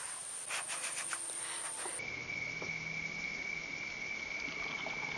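Insects droning steadily, one even high-pitched tone, with a few faint clicks in the first two seconds. About two seconds in, the sound cuts to a lower steady insect tone.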